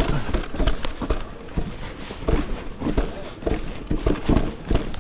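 Electric mountain bike descending a wet trail, rattling and clattering over the rough ground in a rapid, irregular run of knocks and thuds.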